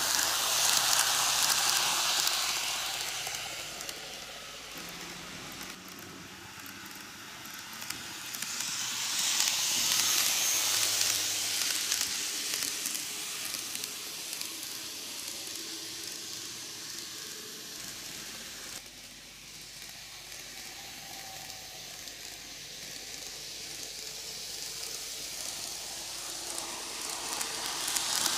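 Greenmax N-gauge Tobu 6050 series model train running on TOMIX canted track: a steady hissing rattle of its wheels on the rails and its motor. It grows louder as the train passes close by, at the start, again about ten seconds in, and at the end, and is quieter while it runs on the far side of the loop.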